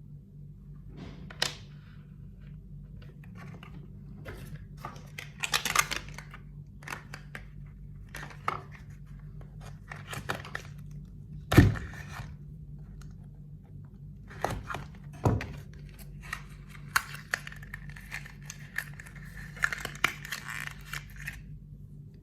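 Packaging being torn open and handled, with irregular tearing and rustling, light clicks, and a few sharp knocks, the loudest about halfway through. A steady low hum runs underneath.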